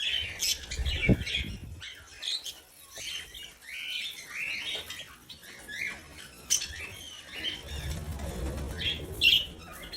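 Budgerigar chirping and chattering in short, scattered calls, with a low rumble about a second in and again near the end.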